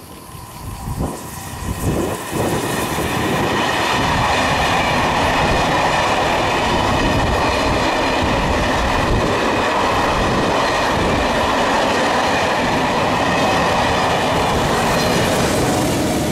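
Electric-locomotive-hauled passenger train passing close by: the steady rush of the coaches' wheels on the rails builds over the first few seconds, holds loud, and eases off near the end as the last coach goes by.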